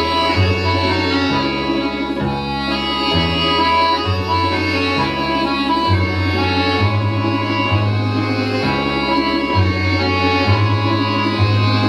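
Instrumental folk-style music with a bass line that steps from note to note every half second or so, and no singing.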